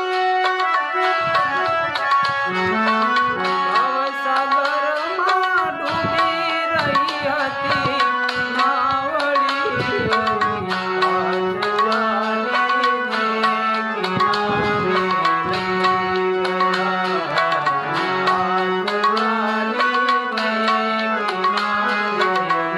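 Gujarati devotional bhajan music: tabla keeps a steady rhythm under a melody of held notes that step up and down, with a few gliding notes around the middle.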